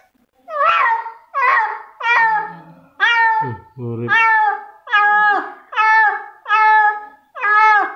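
A calico cat meowing over and over, ten or so short harsh calls at a little more than one a second, each dropping in pitch at its end. The cat is dying of poisoning after eating rat-trap bait.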